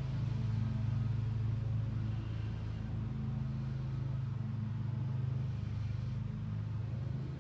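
A steady low mechanical hum, as from a running motor, holding one pitch at an even level.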